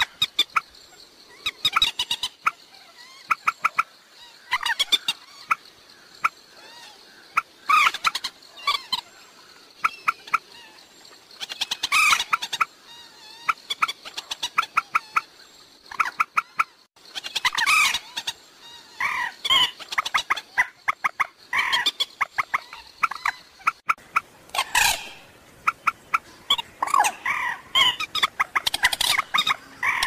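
Common moorhen calling: bursts of rapid clucking chatter every couple of seconds, some loud and some faint, with a few longer, louder outbursts.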